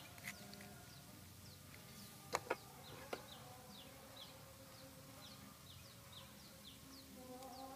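Faint, steady series of short, high chirps that fall in pitch, about three a second, from a small creature, with three sharp clinks a little over two seconds in, utensils knocking on the metal cooking pot.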